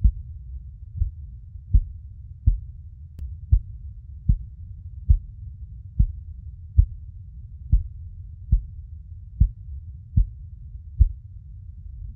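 A slow, steady heartbeat: low thumps about every 0.8 seconds, roughly 70 a minute, over a steady low rumble.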